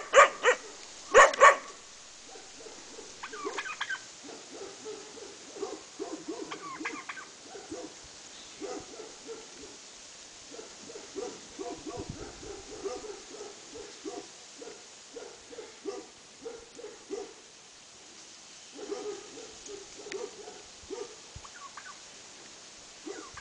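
Domestic turkey gobbling in repeated rapid bursts, with a couple of loud puppy barks right at the start.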